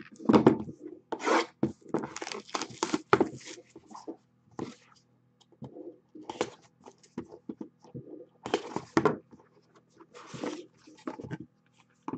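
A cardboard trading-card hobby box being cut open with a knife and unboxed by hand: irregular scraping, rubbing and sliding of cardboard, with the lid slid off near the end.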